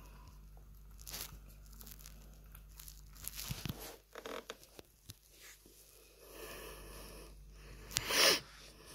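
Maine Coon kitten eating from a ceramic bowl: irregular small clicks, smacks and lapping as it chews and licks the food, with a louder rustling scrape about eight seconds in.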